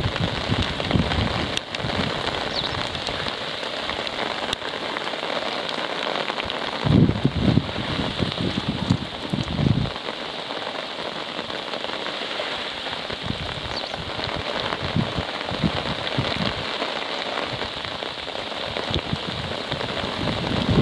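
Steady hiss of rain falling, with wind buffeting the microphone in irregular low gusts, the strongest about seven and nine and a half seconds in.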